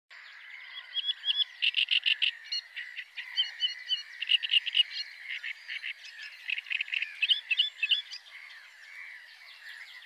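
A chorus of many frogs calling together in rapid pulsed croaks, densest through the middle and thinning near the end.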